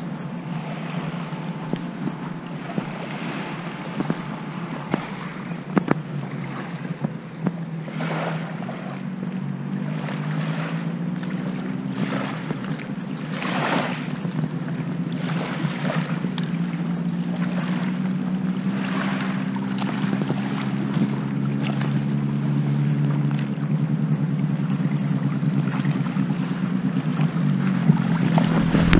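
A distant engine droning steadily, its pitch drifting slowly up and down over many seconds. Gusts of wind buffet the microphone.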